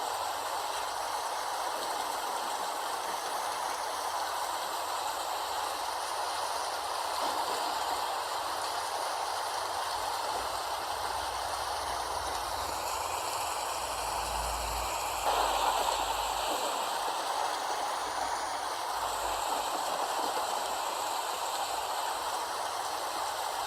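Steady rain, an even hiss of falling rain, briefly a little louder about two-thirds of the way through.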